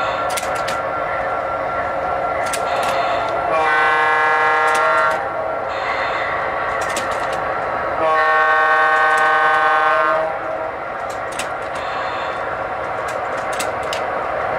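MTH model diesel locomotive's onboard sound system playing a steady diesel engine drone with scattered sharp clicks, and two blasts of a many-toned air horn: the first about three and a half seconds in, lasting a second and a half, the second about eight seconds in, lasting about two seconds.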